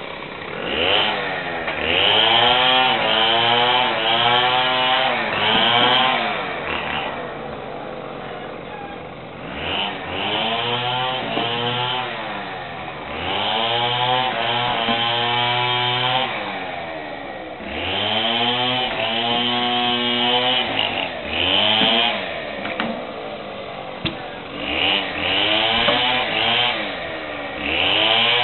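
Chainsaw engine revved in about six bursts of a few seconds each, the pitch climbing as it speeds up, wavering while held, then dropping back toward idle between bursts.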